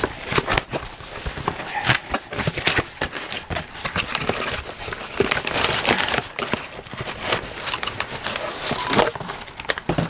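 Cardboard box being opened by hand: flaps pulled back and scraped, with continual rustling and crinkling of the packing inside and scattered sharp clicks.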